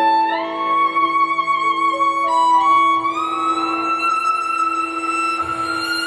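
Performance music: long held melody notes that slide up in pitch twice, near the start and about halfway through, over a steady sustained lower note.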